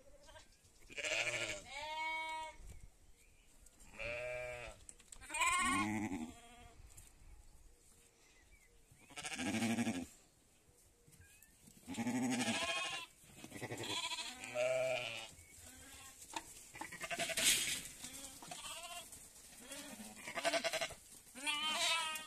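Sheep and lambs bleating, about a dozen separate calls spread out in turn, some lower and some higher, a few with a quavering tremble.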